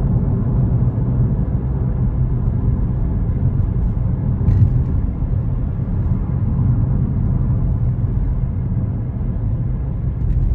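Steady low rumble of a moving car, heard from inside the cabin: engine and tyre noise while driving along the road.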